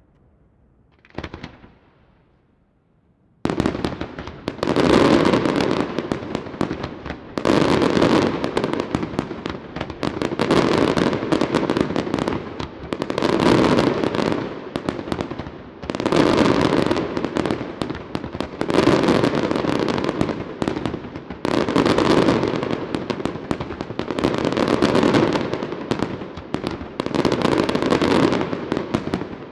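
Aerial fireworks display by Luigi Di Matteo Fireworks. After a near-quiet start with one brief pop, a dense barrage of shell bursts and crackling begins about three and a half seconds in and surges in waves about every three seconds.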